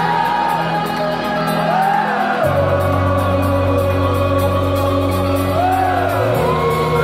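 Live rock band playing, heard from within the crowd: held bass chords that change twice, with wordless sung 'ooh' glides rising and falling over them.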